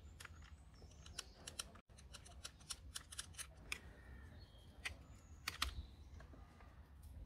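Faint, irregular light clicking and rattling of a Parkside 1400W electric chainsaw's metal chain links as the chain is seated by hand onto the bar and sprocket.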